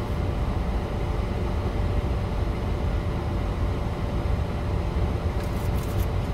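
Steady low rumble inside a parked car's cabin, with a short crackle near the end.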